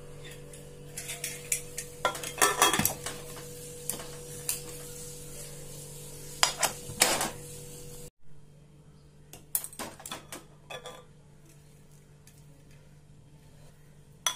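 A pressure cooker's metal lid and pot being handled and closed, with clusters of metallic clinks and knocks, the loudest about two and a half seconds in and again around seven seconds. A steady low hum runs beneath.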